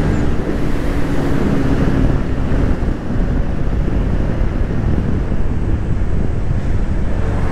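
Loud wind rush on the microphone from a Bajaj 125 cc single-cylinder motorcycle riding at high speed, burying most of the engine's sound. A faint steady engine hum fades out in the first couple of seconds.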